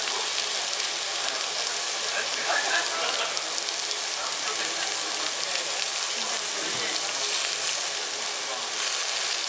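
Raw lamb slices sizzling steadily on a hot cast-iron Genghis Khan dome grill, a bright, even hiss of meat frying.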